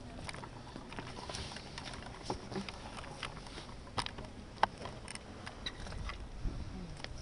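Footsteps of hard-soled shoes clicking irregularly on cobblestones, with two sharper clicks about four seconds in.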